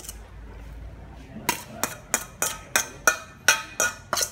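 A metal spoon knocking and clinking against a metal bowl, about three sharp taps a second starting about a second and a half in, as sugared fruit pulp is scraped out onto a plate.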